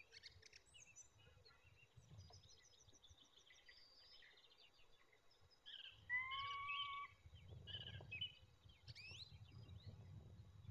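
Faint chirps and trills of small wild birds, with one louder drawn-out call lasting about a second a little past halfway through, over a low rumble.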